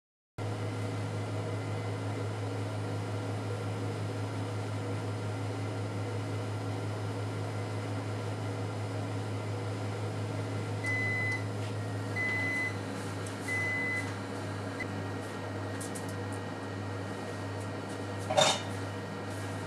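Sharp AX-HC2 oven running at 230°C with a steady hum as its timer runs out. About eleven seconds in it gives three short beeps about a second and a half apart to signal the end of the countdown. Near the end comes a single sharp clack, the loudest sound.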